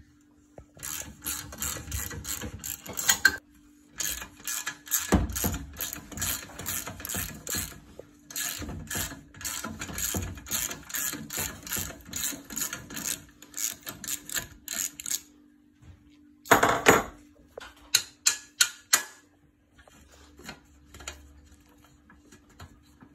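Ratchet wrench clicking in long quick runs, about four clicks a second, with short pauses and a few separate louder clicks near the end, as a bolt is turned through the pit bike's rear shock mount. A faint steady low hum sits underneath.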